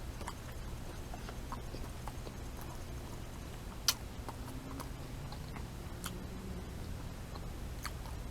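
Someone chewing pigs in a blanket with mouth closed, with small wet clicks and lip smacks, one sharper click about four seconds in.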